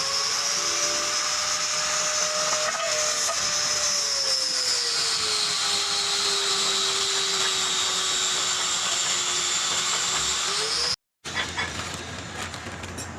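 A handheld power tool's motor runs with a steady whine and a hiss; about five seconds in its pitch dips and stays lower. The sound cuts off abruptly near the end and gives way to quieter workshop noise.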